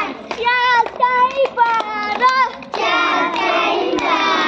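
Children singing a Hindi action rhyme: one child's voice in short sung phrases, then several voices singing together from about two and a half seconds in.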